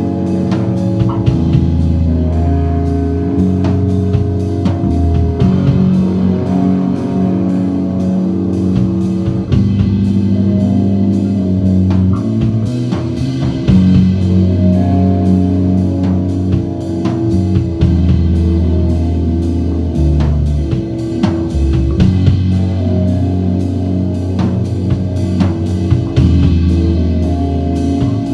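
Live instrumental rock band playing guitar and drum kit, with long held low notes underneath and no vocals.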